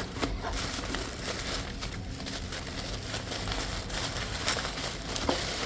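Packaging crinkling and rustling as a lock pick set is unwrapped by hand, with a few light clicks.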